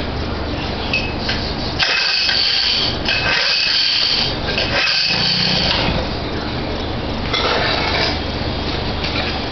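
Old two-stroke boat motor, low on compression, being started and run: a steady low hum with three louder, rough stretches of about a second each in the middle.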